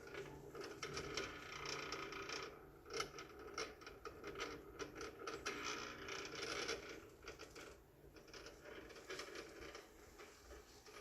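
Electrical distribution panel giving off an abnormal irregular crackling and rattling, in uneven clusters, over a faint steady low hum; the cause is unknown to the owner.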